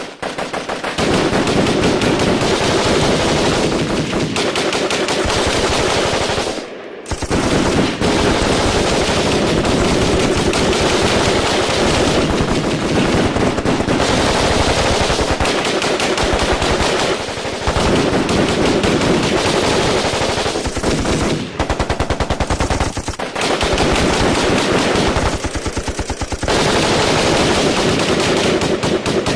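Firefight: automatic weapons firing long, rapid bursts that run into one another, with a few brief lulls about 7 s in, around 17, 21 and 23 s.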